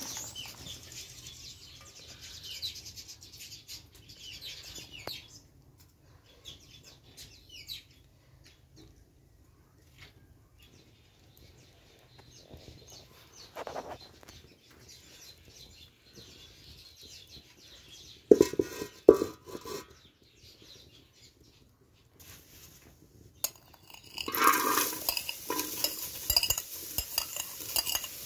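Kitchen handling sounds: shredded cabbage rustling as a hand mixes it in an aluminium bowl at first, a quiet stretch, a short run of metal knocks in the middle, and clattering and clinking of a metal pot and plate near the end as chopped spring onions are tipped into the pot.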